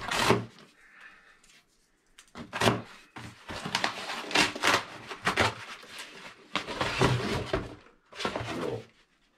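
A cardboard parcel being handled and unpacked on a desk: a string of knocks, scrapes and rustles that sets in about two and a half seconds in.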